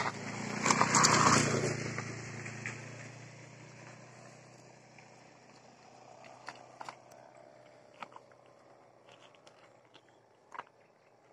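Bowstring hummers (sendaren) on flying kites, droning low with a diesel-engine-like hum that fades away over the first several seconds. A loud rushing swell of noise comes about a second in, and a few scattered clicks follow later.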